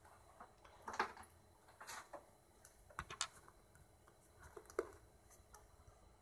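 Faint, scattered clicks and taps of plastic action figures being handled and set down on a shelf among other figures.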